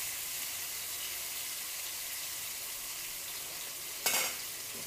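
Marinated fish steaks sizzling steadily as they shallow-fry in a little oil in a non-stick pan, with a brief louder sound about four seconds in.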